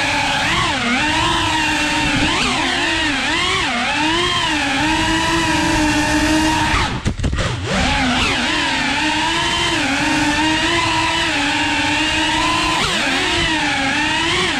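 FPV quadcopter's brushless motors whining, the pitch rising and falling continuously with the throttle. About seven seconds in, the whine briefly cuts out with a few clicks, then picks up again.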